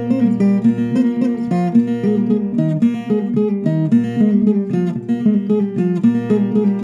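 Instrumental viola caipira music: a quick run of plucked notes over steady bass notes, with no singing.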